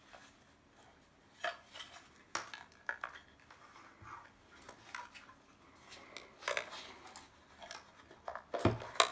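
Hard plastic case of an ACR SARLink personal locator beacon being handled and its rear cover pressed back on: scattered light clicks and knocks, with the loudest knock near the end.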